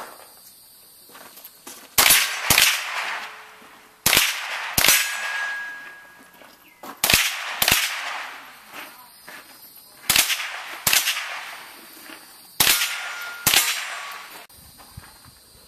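Handgun fired in five quick pairs, two shots about half a second apart in each pair, the pairs two to three seconds apart, each shot trailing off. After a couple of the pairs a hit steel target rings briefly with a single clear tone.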